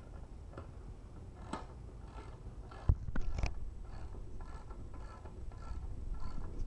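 Small metal clicks and knocks from a bolt and washers being fitted and tightened through the end of a wooden 2x4 roller frame. There is a sharp knock about three seconds in, then light clicks a few a second as a wrench turns the bolt.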